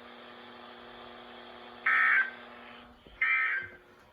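Weather-radio SAME end-of-message signal: two short, loud bursts of buzzing digital data tones, about two and three seconds in. They play over a faint steady hum and hiss from the receiver. They mark the close of the Required Weekly Test message.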